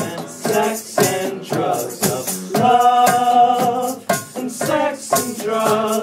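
A live acoustic band plays: two strummed acoustic guitars and hand-played bongos keep a steady beat under sung notes, some held for over a second.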